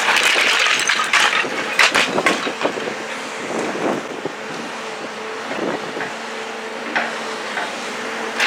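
Building demolition: wood and debris cracking and crunching in irregular sharp snaps, with the loudest ones about two seconds in and near seven seconds, over the steady drone of the demolition machine's engine.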